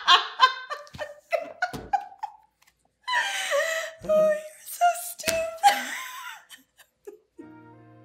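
A woman's hard laughter trailing off in short gasps, then another run of laughing about three seconds in. Near the end, soft music with held chords comes in.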